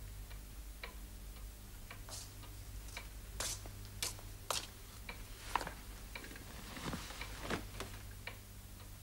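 A clock ticking slowly and regularly in a quiet room, about one tick a second. Several louder, sharper clicks fall between the ticks around the middle.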